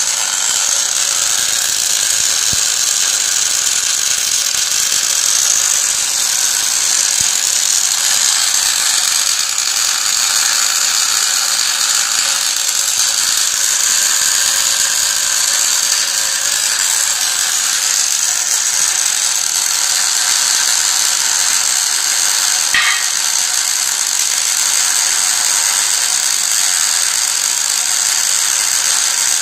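MIG welding arc, a steady hissing crackle that runs on without a break while the welding wire is fed into the weld.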